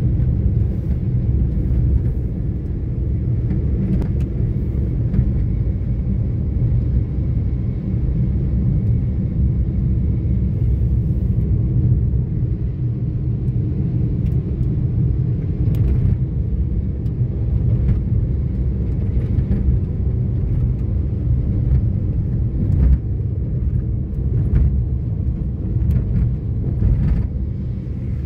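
Steady low rumble of a car's engine and tyres, heard from inside the cabin while driving at a constant pace.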